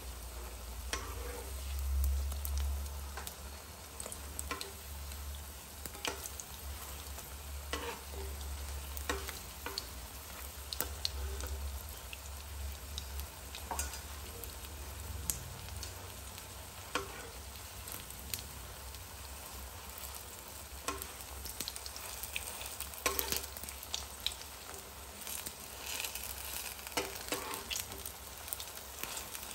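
Batter-coated potato slices shallow-frying in hot oil in a nonstick kadhai: a steady sizzle with frequent crackling pops. A metal spatula moves and turns the slices in the pan near the start and again near the end. A low hum sits underneath, stronger in the first half.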